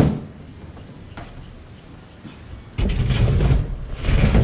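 Plastic cooler handled on a pickup truck's bed: a sharp knock at the start, then heavy thumping and scraping from near the middle to the end as the cooler is shifted and its lid handled.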